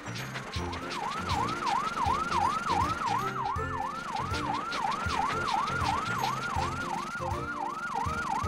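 Fire truck siren in a fast yelp, sweeping up and down about three times a second and starting just after the beginning, over background music with a steady beat.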